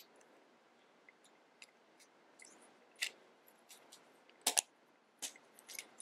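Plastic Engino construction pieces clicking as they are snapped together by hand: a few sharp, separate clicks, the loudest a quick pair about four and a half seconds in.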